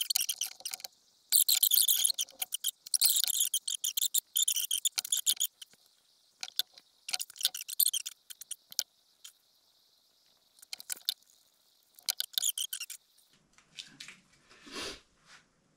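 Scratchy scraping in short bursts of quick strokes as a thin stick scrapes glue squeeze-out from the edges of freshly glued, clamped knife handle scales. A few softer handling rustles come near the end.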